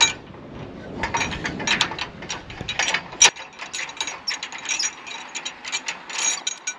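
Metal clicking and clinking of hand tools working a stainless rigging fitting on a sailboat stay as it is unscrewed, the clicks coming in quick, uneven runs.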